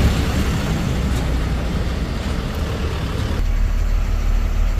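A 14-wheel truck's engine running steadily in slow traffic, with road noise. About three and a half seconds in the sound changes abruptly to a steadier low engine hum with less hiss.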